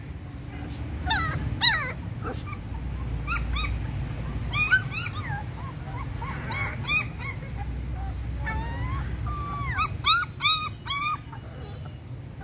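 Young puppies whimpering and yelping in short, high-pitched cries that come in scattered bunches of several calls, the loudest bunch near the end.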